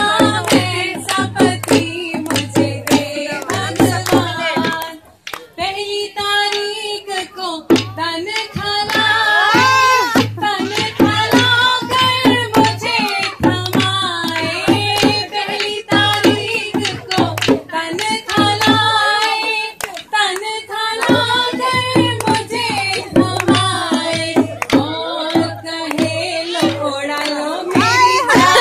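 A woman sings a Hindu devotional bhajan into a microphone, with hand claps and drumbeats keeping a steady beat. The singing breaks off briefly about five seconds in.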